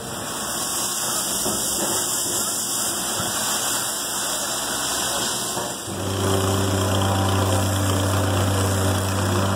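3/4-inch crushed stone pouring down a truck chute with a steady rushing hiss. About six seconds in, this cuts off and a plate compactor runs with a steady low hum as it compacts the stone.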